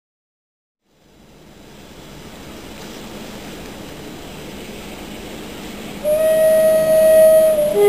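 Diesel locomotives approaching in convoy, their engine noise swelling steadily from about a second in. About six seconds in, the lead Class 47's two-tone air horn sounds its high note, loud and steady for about a second and a half.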